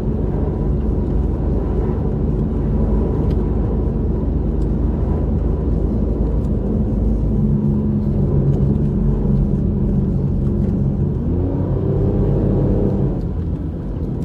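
Four-wheel drive's engine pulling steadily through beach sand, heard from inside the cabin as a low drone. About eleven seconds in the revs climb, then drop away near the end.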